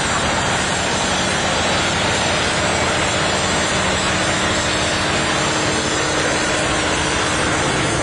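An engine running steadily under a constant even hiss, with no change in level.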